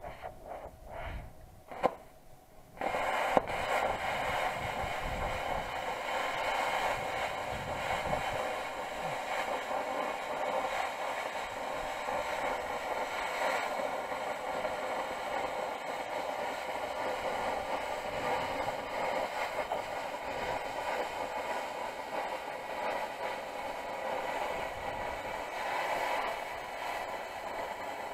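Handheld plasma cutter cutting a steel sheet. After a couple of sharp clicks, the arc starts about three seconds in with a sudden steady hiss that continues without a break.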